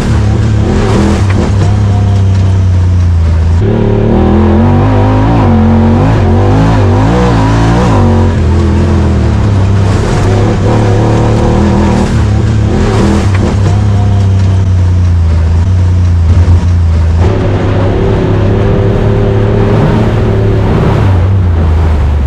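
Honda Talon side-by-side's 999 cc parallel-twin engine running loud under way, mostly at a steady pitch, with the pitch wavering up and down for a few seconds about four seconds in.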